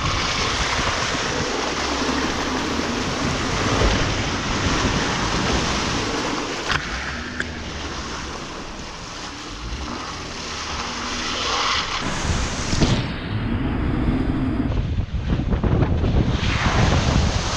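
Loud rushing noise on a camera mounted low on the side of a Jeep Wrangler JK as it pushes through brush and mud, with the engine running steadily underneath. The sound changes character about two thirds of the way through.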